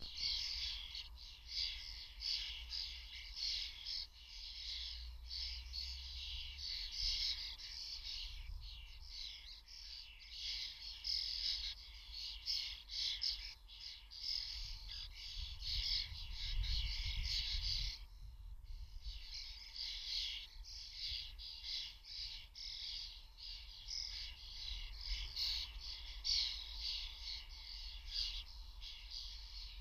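A flock of common starlings chattering, a dense mix of overlapping calls with a brief lull about eighteen seconds in. A low rumble runs underneath.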